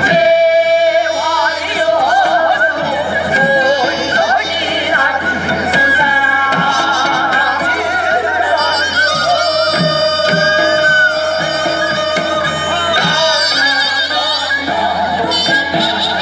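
Korean traditional music: several pitched melody lines that waver and slide through continuous ornaments, played without a break.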